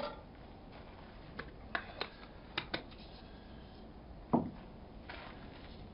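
A run of short metallic clicks and clinks from handling the mess tin and utensils, then one louder knock about four seconds in, over the faint steady hiss of a gas camping stove burning.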